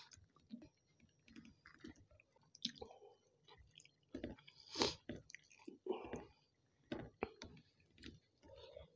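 A person chewing food close to the microphone, with wet mouth smacks and irregular small clicks; the loudest smack comes about five seconds in.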